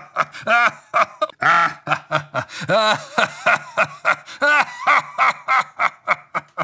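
A man's voice acting out a long bout of laughter for a character: quick, pitched 'ha' pulses, about four a second, that fade out near the end.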